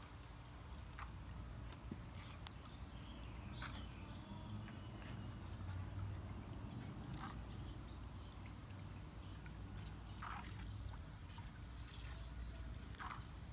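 Faint outdoor pool ambience: water lapping and trickling over a low steady rumble. A few short sharp clicks are spread through it, and a brief high whistle with small chirps comes a few seconds in.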